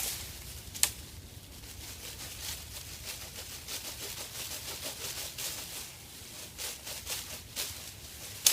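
Dry twigs and leaves crackling and rustling in irregular clicks, with a sharp snap about a second in and another at the end.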